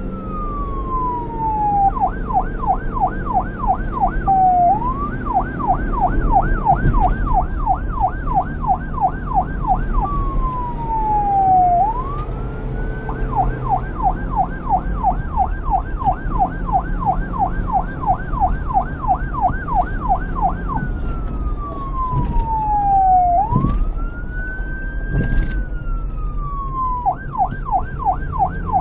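Police car's electronic siren, switching back and forth between a slow wail that falls over a couple of seconds and a fast yelp of about four sweeps a second. A steady low rumble runs underneath.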